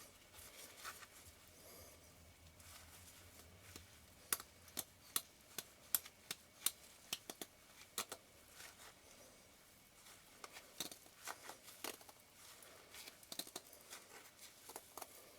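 Scattered small, sharp clicks and light taps of metal lens parts and small tools being handled during the lens disassembly, coming in two loose runs with a short lull between.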